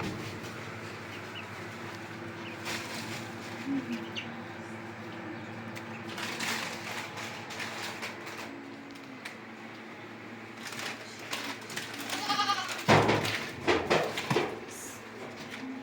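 An animal bleating with a quavering call, loudest about three seconds before the end, over a steady low hum and scattered faint knocks and rustles.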